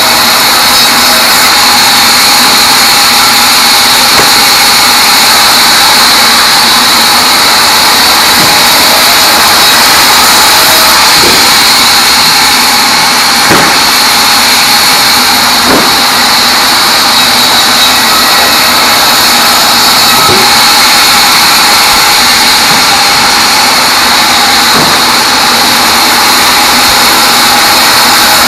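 Large sawmill band saw running steadily and sawing small teak logs: a loud constant hiss with a strong steady high tone. Several short knocks of wood being moved against the carriage are heard along the way.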